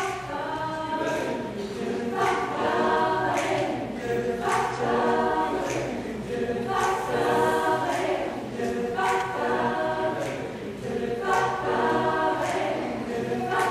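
Mixed-voice chamber choir singing in harmony, in phrases of a second or two with brief breaks between them.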